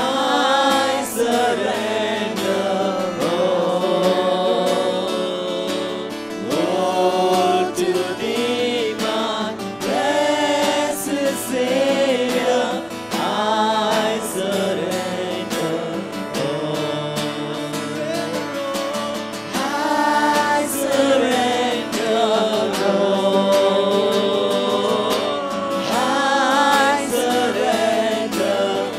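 Live Christian worship song: several voices singing together through microphones over two acoustic guitars.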